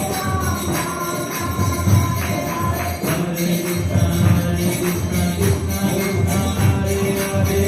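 Devotional Krishna kirtan: voices chanting a melody over jingling percussion and a drum keeping a steady beat.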